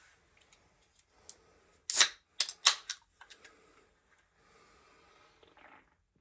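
A series of sharp clicks and knocks of objects being handled: a few light ticks, a loud knock about two seconds in, then three more in quick succession, with fainter rustling near the end.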